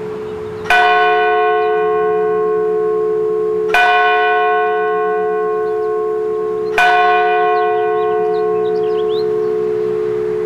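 Church bell tolling the noon hour: three strokes about three seconds apart, each ringing on and slowly fading, over a steady low hum.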